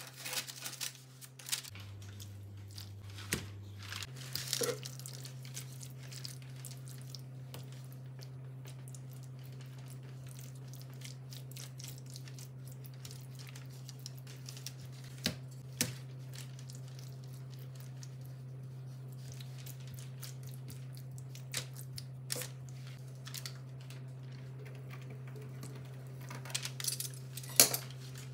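Steady low electrical-sounding hum with a handful of light clicks and rustles from handling in a small kitchen; the hum dips lower for a couple of seconds near the start.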